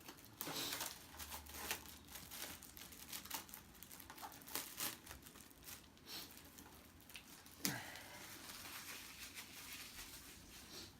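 Plastic shrink wrap crinkling and tearing as it is pulled off a Blu-ray case, in a run of irregular crackles with a few louder snaps.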